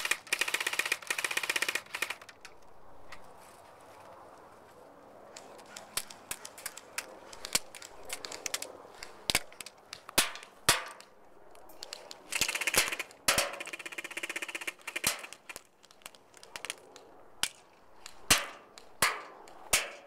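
Airsoft electric guns firing: a rapid full-auto burst for about the first two seconds and another about two-thirds of the way through, typical of Peyton's G&G FN2000, the only gun allowed full auto, with scattered single semi-auto shots in between and after.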